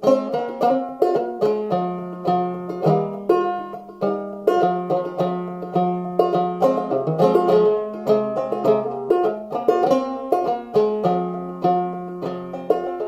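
Five-string banjo played clawhammer style in open G minor tuning (gDGBbD), a steady run of plucked notes with hammer-ons, slides and drop thumbs, each note ringing briefly.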